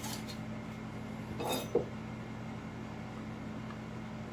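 A brief scrape and a single light metallic clink at a small electric solder pot holding molten lead, about one and a half seconds in, over a steady low hum.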